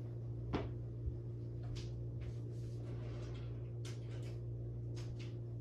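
A steady low electrical hum, with a few faint scattered clicks and knocks.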